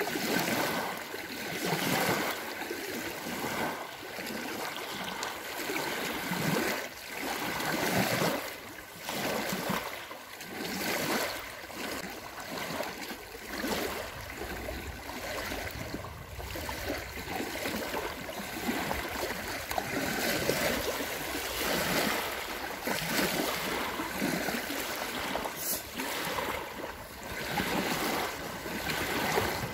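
Small lake waves lapping and washing onto a sandy beach, surging every second or two.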